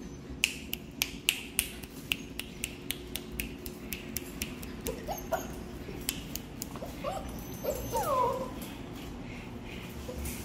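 Puppies whimpering and whining, short rising-and-falling cries that come mostly from about five seconds in. Before them, a rapid run of sharp clicks, several a second, lasting about six seconds.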